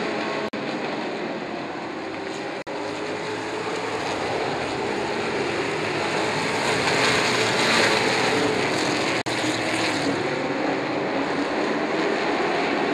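A pack of Super Truck race trucks running laps with their engines at speed, a steady mechanical drone that swells louder about seven seconds in. The sound drops out briefly three times.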